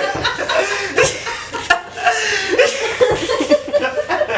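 A group of young men laughing loudly and talking over each other, with a few sharp knocks among the laughter.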